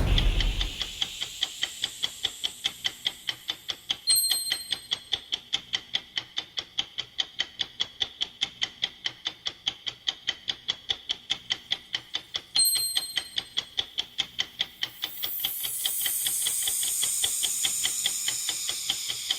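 Clock-tick sound effect of a countdown timer: fast, even ticks throughout, with a short bright chime about four seconds in and again about twelve and a half seconds in, and a swelling whoosh over the last few seconds.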